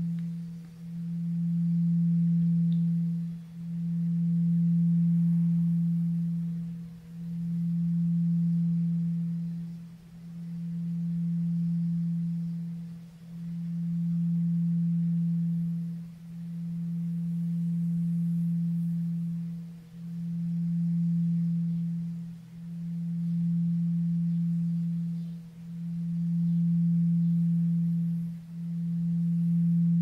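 Tibetan singing bowl tuned to E (164 Hz) sounding one low, steady note that swells and fades about every three seconds, with a faint higher overtone.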